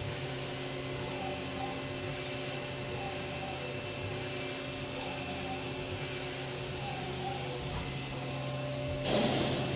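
Haas VF-1 CNC vertical machining center running, a steady hum made of several held tones. Near the end a louder rushing noise comes in over it.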